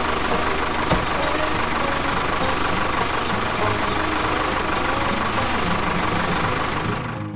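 A small engine or motor running steadily with a fast, even low pulsing, with one sharp click about a second in. The running sound cuts off abruptly near the end.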